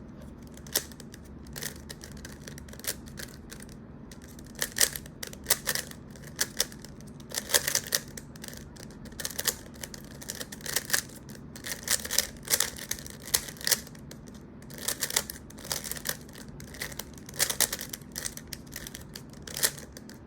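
A stickered plastic 3x3 Rubik's cube being turned fast by hand during a timed solve: flurries of quick, irregular plastic clicks and clacks as the layers snap round, with brief pauses between sequences of moves.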